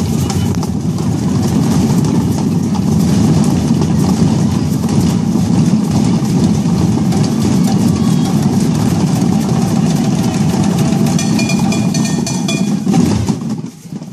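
A large group of children drumming together on buckets, a dense, loud, steady mass of rapid beats. It drops off sharply about a second before the end.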